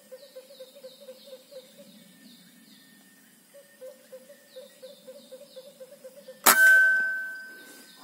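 PCP air rifle firing a single shot about six and a half seconds in: a sharp crack followed by a ringing tone that fades over about a second and a half. Before the shot, a steady pulsing call and faint repeated chirps sound in the background.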